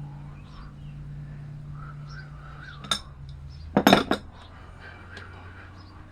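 Metal tools and steering-box parts clinking as they are handled: one sharp clink about three seconds in, then a quick cluster of louder clanks about a second later, over a steady low hum.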